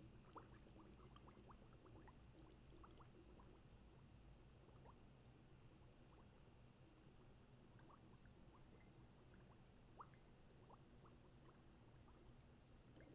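Near silence: faint room tone with scattered, irregular tiny ticks, one a little louder about ten seconds in.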